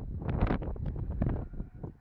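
Wind buffeting the microphone of a camera in a moving car, in irregular gusts that fade toward the end.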